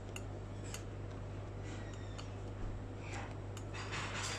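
A few faint clicks of metal chopsticks over a steady low hum.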